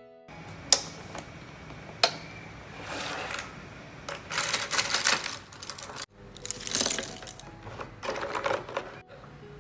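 Acrylic paint tubes and brushes being handled in the storage drawer of a wooden box easel: a couple of sharp clicks, then several short bursts of clattering and knocking.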